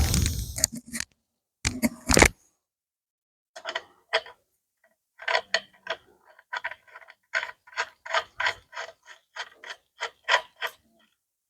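Hand ratchet wrench clicking as it is worked in short strokes, settling into about two or three clicks a second, after a louder clatter of metal about two seconds in.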